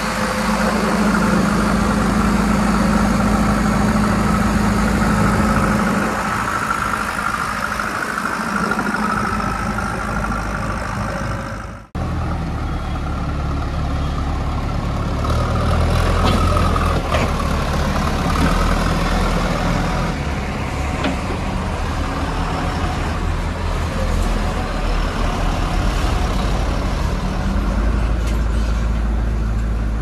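Diesel engine of a Kirloskar-engined JCB backhoe loader running as the machine drives, with a higher whine wavering above it. After a sudden cut about twelve seconds in, a deeper, heavier engine runs on with a few light clicks.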